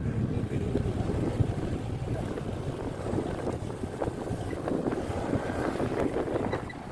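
Wind buffeting the microphone on a moving Honda Click 125i scooter, a dense low rumble with road and engine noise underneath.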